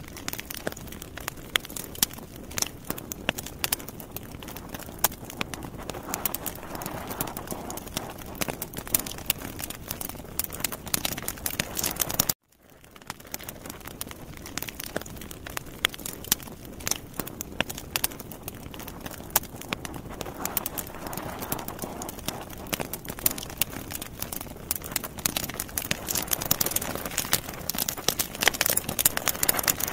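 Sausages on metal skewers sizzling over a charcoal grill, with dense, irregular crackling and popping from fat spitting onto the hot coals. The sound drops out for a moment about twelve seconds in.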